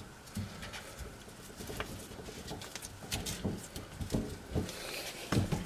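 Drain slip nut being threaded and turned by hand onto the sink drain pipe: scattered faint clicks, scrapes and small knocks.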